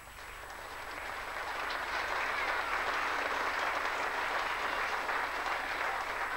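An audience clapping. The applause grows louder over the first two seconds, then holds steady.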